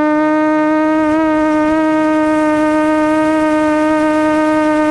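QAV400 quadcopter's brushless motors and propellers whining at a steady pitch in cruising flight, heard up close from the onboard camera, with a brief wobble in pitch about a second in.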